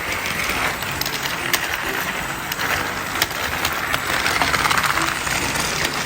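Several battery-powered Thomas and Friends TrackMaster toy trains running at once on plastic track: a steady whir of small motors with rapid clicking and clattering of wheels, track joints and plastic parts.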